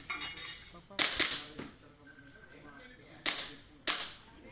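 Airsoft pistol firing: sharp pops, a quick pair about a second in, then two more near the end about half a second apart.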